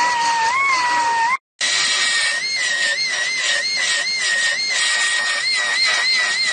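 Finger belt sander whining as it dresses MIG welds on car body steel. Its pitch rises and dips about twice a second as the belt is pressed and eased against the weld. The sound cuts out for a moment about a second and a half in.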